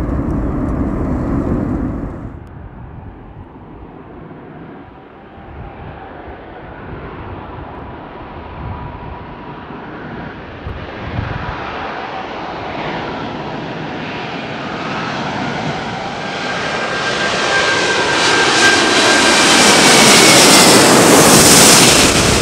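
Jet engines of a climbing E-3 AWACS radar plane for the first two seconds, then cut to a four-engined Airbus A380 with Rolls-Royce Trent 900 turbofans on landing approach. The A380's jet noise builds steadily as it nears and passes low overhead, with whining engine tones that bend in pitch, loudest near the end.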